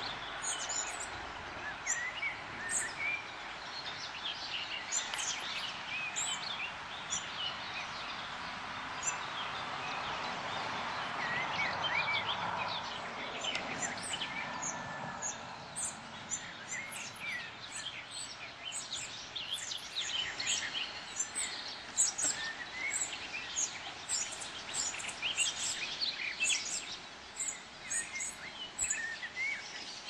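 Small songbirds chirping and singing in many short, high calls throughout, over steady outdoor background noise that swells for a few seconds around the middle.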